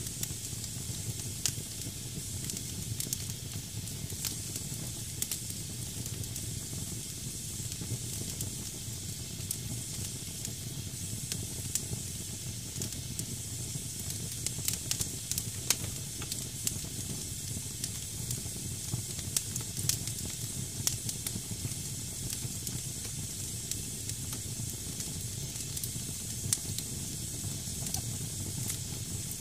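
Wood fire burning in a fireplace: damp logs hissing steadily, with scattered sharp crackles and a low rumble underneath.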